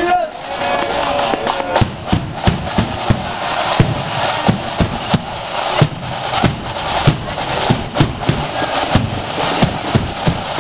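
Marching band playing on the move, its drums beating a steady march beat over the band's dense wash of sound.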